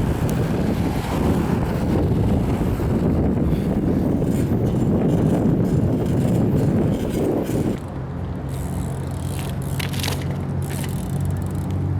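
Wind buffeting the microphone while riding a bike. About eight seconds in, the rumble drops and a steady low hum takes over.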